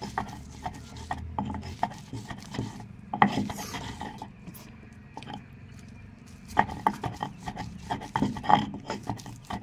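Stone roller scraping and knocking on a flat stone grinding slab (sil-batta) as boiled potatoes are crushed and ground into a paste, in repeated hand strokes with a quieter stretch in the middle.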